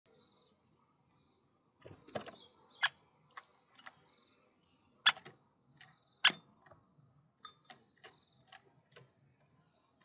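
Great spotted woodpecker at a wooden seed feeder: a series of sharp knocks and clicks, the loudest about five and six seconds in. High thin chirps of small birds come and go behind them.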